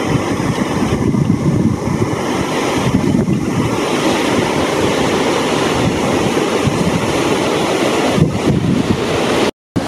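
Ocean surf breaking on a sandy beach, a steady wash of waves, with wind buffeting the microphone. The sound drops out for a split second near the end.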